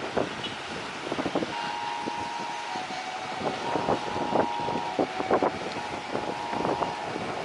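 Strong wind buffeting the microphone in repeated gusty thumps over a steady rushing noise, with faint steady tones coming and going.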